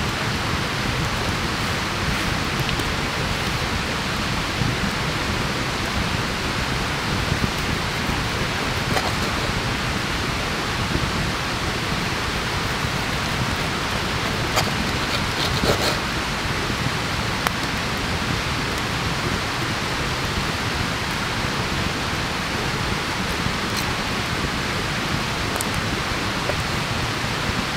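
Steady, even rushing hiss of the surroundings. About halfway through come a few light clicks of a steel steak knife and fork against a wooden cutting board as a steak is cut.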